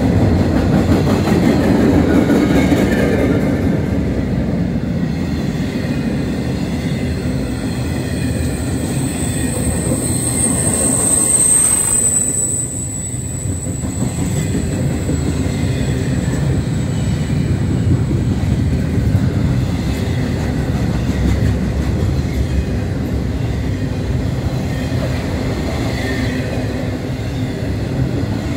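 Intermodal freight train's cars rolling past, steel wheels running on the rails in a steady rumble. A thin, high-pitched wheel squeal rises for several seconds between about a third of the way in and the middle.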